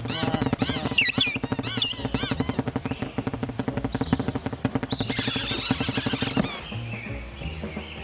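Squeaky chirps and sliding squeals from a bunch of cartoon birds over a fast, rapid run of creaking pulses. About five seconds in, a louder hissing strain with a high held tone starts, then cuts off sharply, leaving softer chirps.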